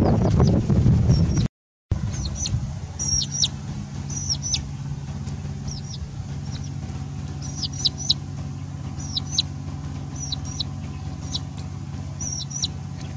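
Repeated short, high-pitched peeping calls from a small animal, each falling in pitch, over a steady low hum. The first second and a half is a loud rumble, followed by a brief cut.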